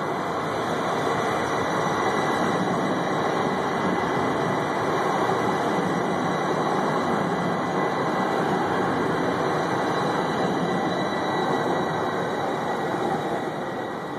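TriMet MAX light rail train passing close by on street track: a steady running noise that swells about a second in and fades near the end as the train moves off.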